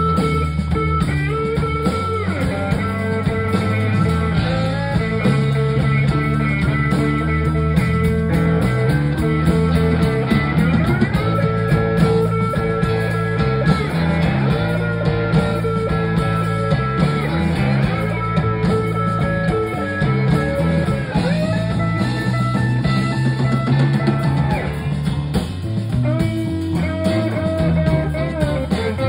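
A live blues-rock band playing: an electric guitar lead line with bent, held notes over bass guitar and a drum kit.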